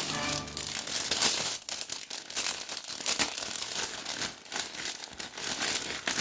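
A toy surprise envelope being torn open and handled, with irregular crinkling and tearing of the packet.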